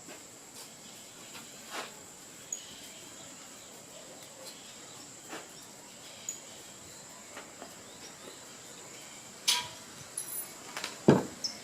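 Scattered clicks and knocks from handling the band saw wheel while fitting a rubber inner-tube tire onto it, the two loudest knocks near the end, over a quiet background with a steady high-pitched insect-like tone.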